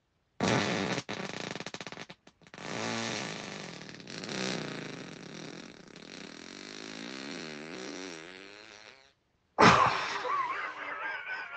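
A person farting. First comes a rough, sputtering fart about half a second in, then a long, drawn-out wavering one lasting several seconds. After a short pause, a sudden loud burst near the end trails off into a high wavering squeak.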